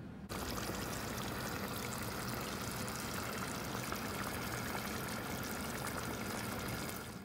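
A pan of kare kare, beef and tripe stew in thick peanut sauce, bubbling steadily as it simmers, a continuous wet hiss with small pops. It cuts in just after the start and stops abruptly near the end.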